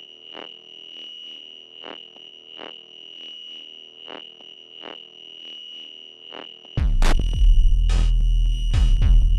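Electronic music: a steady high tone over a soft pulse repeating about every 0.7 seconds. About 7 seconds in, a loud deep bass and a heavy beat come in suddenly.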